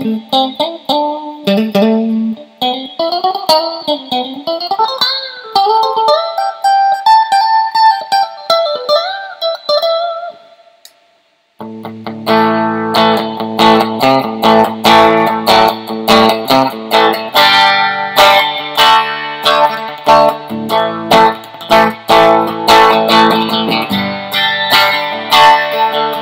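1982 Fender Stratocaster electric guitar played through an amplifier: single-note lead lines with string bends for about ten seconds, fading to silence, then rhythmic picked chords from about twelve seconds in.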